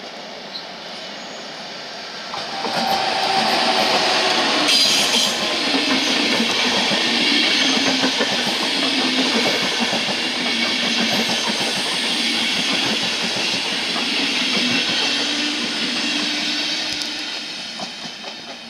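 Deutsche Bahn Intercity train of passenger coaches passing close by: a steady rumble with the wheels clattering over the rails. It grows louder about two and a half seconds in and fades near the end.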